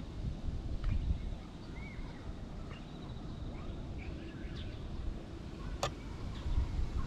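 Wind rumbling on the microphone, with faint scattered bird chirps and one sharp click near the end.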